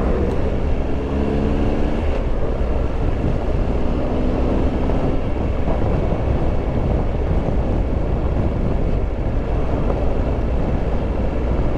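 Triumph Tiger Explorer 1200 motorcycle running at road speed, the engine's hum under steady wind and road noise on the microphone, with a short steady engine tone over it in the first couple of seconds and again about four seconds in.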